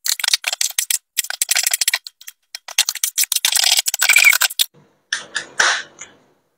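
Kitchen knife chopping onion on a wooden cutting board: a quick, rapid run of knocks for about four and a half seconds. About five seconds in, a beer can is opened with a short click and hiss.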